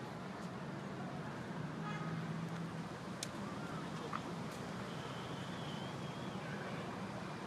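Outdoor city ambience: a steady hum of distant road traffic, with a single sharp click about three seconds in.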